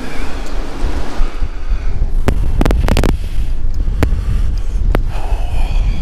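Strong gusting wind buffeting the microphone with a heavy low rumble during a sudden wind-and-ice squall. A few sharp clicks come between about two and five seconds in.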